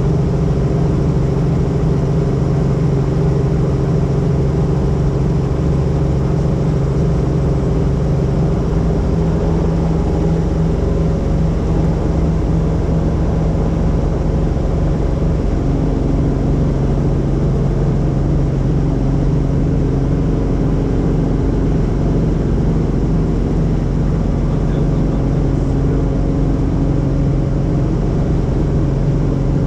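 Helicopter in flight: a steady, loud, unchanging drone of engine and rotor.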